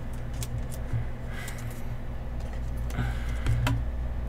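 Panini Prizm trading cards being flipped through by hand: light, irregular clicks and slides of the glossy card stock, over a steady low hum.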